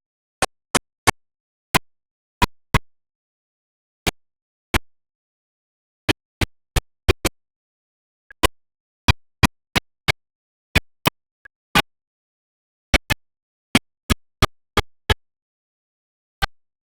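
Sharp, isolated clicks or pops, irregularly spaced, several a second at times, with dead silence between them.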